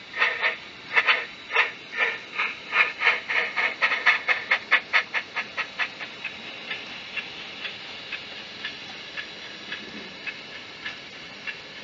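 Bachmann Double Fairlie model locomotive's DCC sound decoder playing steam chuffs through its small onboard speaker. The beat is quick and loud for the first half, then softer and slower, about two chuffs a second.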